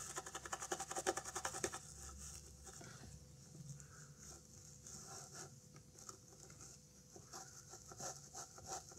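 Toothbrush bristles scrubbing a printed circuit board to loosen stubborn flux residue: quick, faint scratching strokes, busiest in the first second and a half, then lighter and more scattered.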